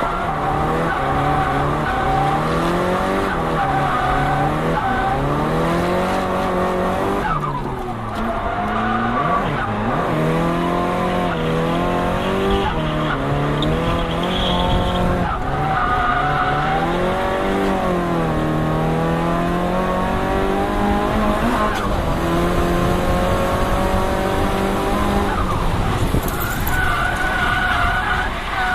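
Nissan Silvia S15's turbocharged four-cylinder engine, fitted with an HKS GTIII turbo, revving up and dropping back repeatedly as the car accelerates, shifts and lifts off.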